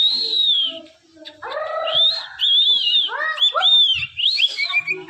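Cockatiel whistling a string of short notes that rise and fall in pitch, after a brief pause about a second in.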